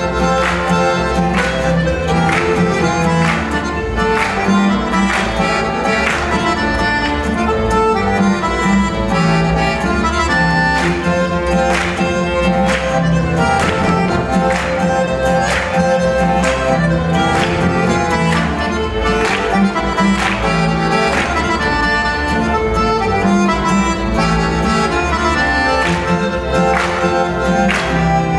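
Traditional folk dance music played on accordion and fiddle, with a steady beat.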